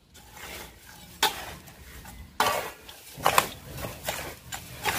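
Metal scoop stirring and scraping a dry bait mix of powder, bran, seeds and roasted peanuts in a large stainless-steel basin: an irregular gritty rustle with a few sharper scrapes against the metal.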